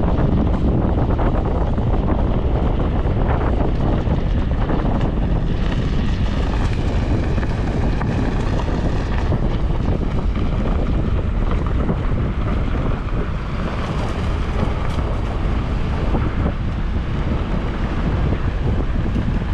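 Steady wind rushing and buffeting over the microphone from a moving vehicle, mixed with low road and engine noise.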